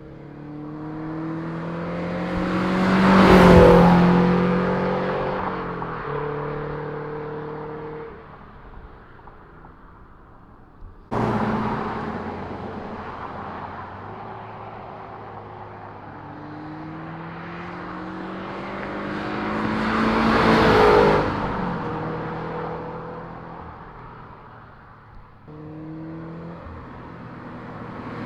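Subaru BRZ / Scion FR-S flat-four, fitted with JDL UEL equal-length headers and an Invidia Q300 cat-back exhaust, accelerating past twice. Each time the exhaust note climbs in pitch and loudness, peaks as the car goes by, then drops and fades.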